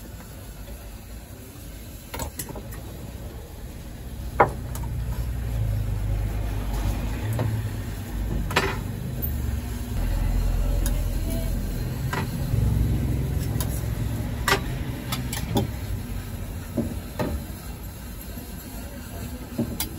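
A vehicle engine running nearby, a low rumble that swells about four seconds in, shifts in pitch, and fades near the end. Scattered sharp metal clinks and knocks as the oven's wire rack and breads are handled.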